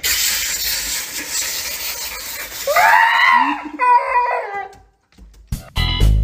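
Water hissing from a handheld shower sprayer into a bathtub, then about three seconds in a husky lets out a howling, whining call of about a second and a half with a shorter one after it. Guitar music starts near the end.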